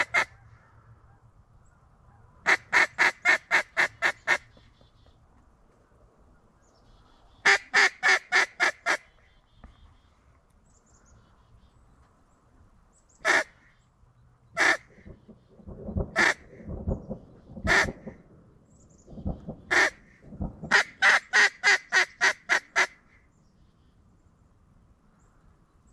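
Mallard duck call blown in three quick runs of about eight to ten quacks, with single quacks and a few lower, rougher quacks in between, calling to ducks working the decoys.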